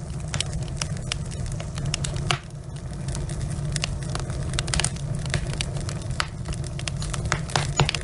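Wood fire burning in a fireplace: logs crackling and popping irregularly, several pops a second, over a steady low rumble of the flames.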